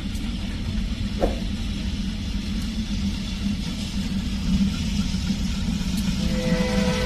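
Diesel shunting locomotive's engine running with a steady low rumble as it moves slowly through the yard. About a second in, a brief falling squeal.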